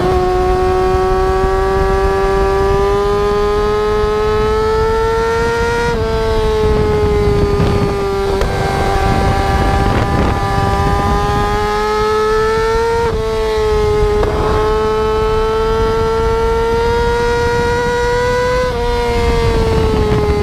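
Small motorcycle engine held at high revs during a wheelie, a steady high-pitched note that creeps upward and then drops sharply three times, as at gear changes.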